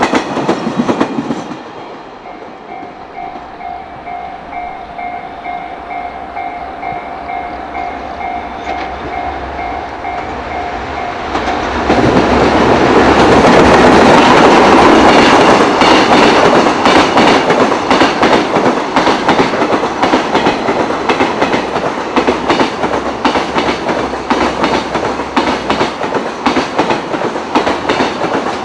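A Japanese level-crossing bell dings in a steady rhythm. About twelve seconds in, a JR Freight train hauled by an EF210 electric locomotive passes close by, loud, its wheels clattering rhythmically over the rail joints.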